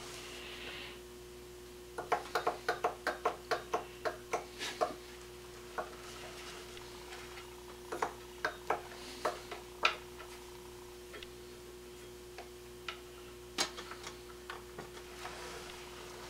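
Small Louis Heinrici hot air (Stirling) engine turned over by hand in an attempt to start it, its flywheels and linkage clicking: a quick run of clicks, about five a second, a couple of seconds in, then slower scattered ticks as it coasts. A faint steady hum sits underneath.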